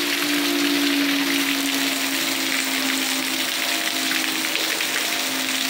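Heavy rain hissing steadily, with an outdoor tornado warning siren holding a steady low tone in the distance.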